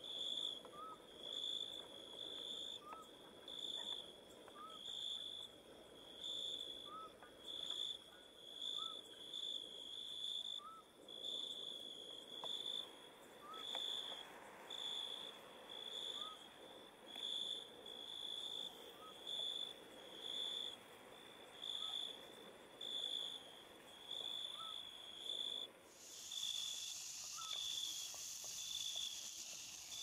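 Crickets chirping in an even rhythm, a high trill pulsing a little more than once a second, with a short, lower rising call repeating about every two seconds. Near the end a steady high hiss joins in.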